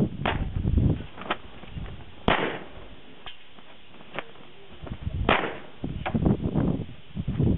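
Pistol shots from a 9mm Glock 19 being fired in single shots, about one a second and unevenly spaced, around seven in all. Low rumbling noise lies between the shots.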